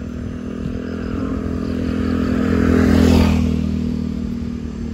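A motor vehicle's engine passing close by on the road, getting louder to a peak about three seconds in and then fading, with the rush of its passing.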